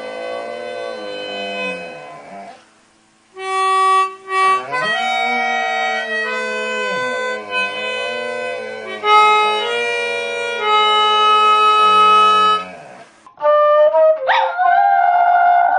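A dog howling in wavering, sliding notes along with an instrument playing steady held notes, broken by a short pause about three seconds in. Near the end a different, higher-pitched instrument takes over.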